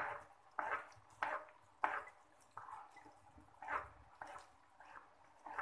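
Knife cutting through tomatoes, a steady run of about nine short, wet cuts, one every half second or so.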